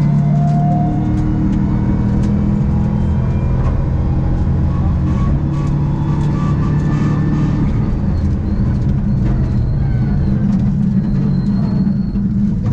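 Subaru rally car's engine heard from inside the cabin, running at a steady speed with little change in pitch, over constant road and tyre noise.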